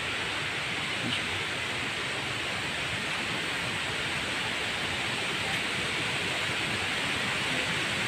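Waterfall heard from a short distance: a steady rushing hiss of falling water, growing slightly louder toward the end.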